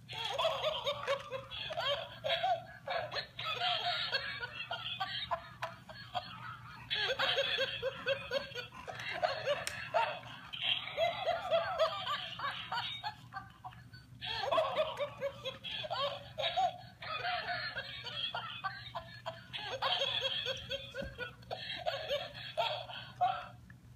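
Laughing monkey plush toy playing its recorded laughter in repeated bouts of cackles and giggles, with short breaks between them.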